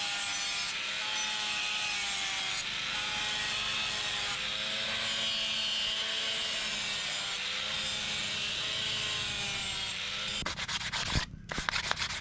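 Steady abrasive sanding with a wavering, squealing tone on top. It gives way about ten seconds in to a quick run of sharp clicks.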